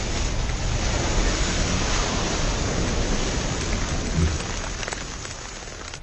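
A huge mass of burning wooden matchsticks: the fire burns with a dense, steady rushing noise that dies down over the last second or so.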